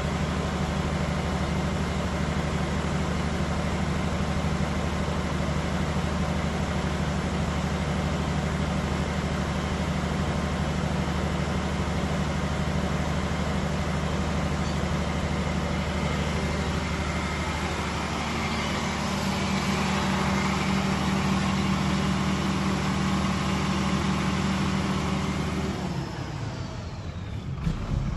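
Cummins 187.5 kVA silent diesel generator set running steadily under its canopy. About two seconds before the end its engine note drops away, as if the set is being shut down and winding down.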